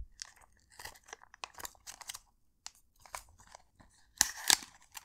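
Packaging being opened and handled during an unboxing: scattered short crinkles, rustles and clicks, with a louder burst of rustling about four seconds in.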